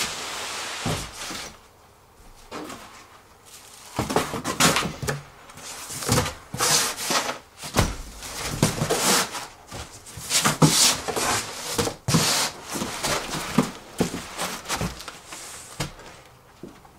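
Large cardboard shipping box being handled and moved: irregular scraping, rubbing and knocks of cardboard, coming in bursts with short pauses.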